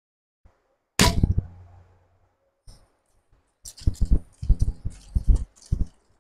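A single sharp knock about a second in, followed by footsteps walking over the ground.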